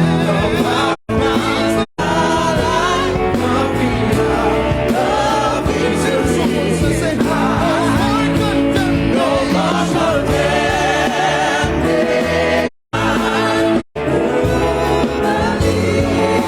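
Church choir singing a gospel song with band accompaniment. The sound cuts out completely for a moment four times: twice in the first two seconds and twice about thirteen to fourteen seconds in.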